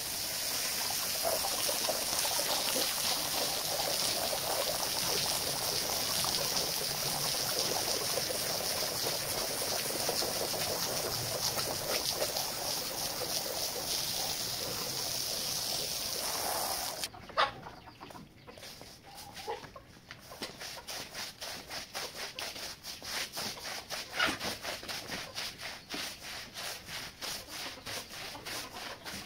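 Garden hose spraying water onto a wet ribbed carpet, a steady hiss that cuts off suddenly about two-thirds of the way through. A stiff broom then scrubs the soaked carpet in quick, rhythmic back-and-forth strokes.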